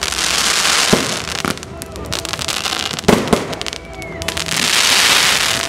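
Fireworks display: bursting shells hiss and crackle, with sharp bangs about a second in, again half a second later and just after three seconds. A second hissing swell builds near the end.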